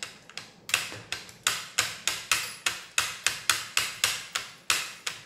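Metal cutlery striking a plate in a quick, fairly even series of sharp clicks, about three a second, as food is chopped up on the plate.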